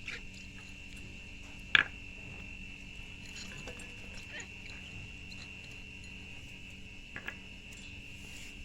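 Steady high-pitched insect chirring, with one short sharp sound about two seconds in, the loudest thing heard, and two fainter ones near seven seconds.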